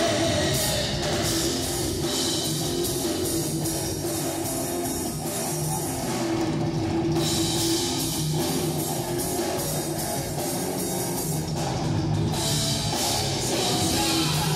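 Live rock band playing an instrumental passage: electric guitars and a drum kit with cymbals, at a steady volume.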